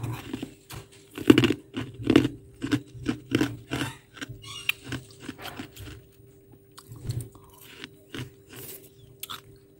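Freezer frost being bitten and chewed: a run of crisp crunches, thickest and loudest in the first four seconds, then sparser.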